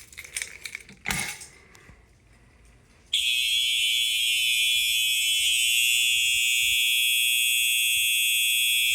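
A few clicks and rattles as a fire alarm pull station is pulled, then about three seconds in Simplex electronic fire alarm horns come on set to continuous, sounding a loud, steady, unbroken high-pitched tone.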